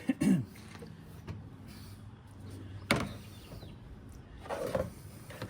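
Plastic air filter box being handled and fitted back into place in a pickup's engine bay: a few sharp knocks and clicks, the sharpest about three seconds in, and a scrape near the end.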